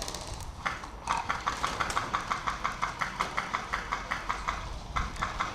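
A rapid, even run of sharp clicks, about six a second, lasting some three and a half seconds, then a few more near the end.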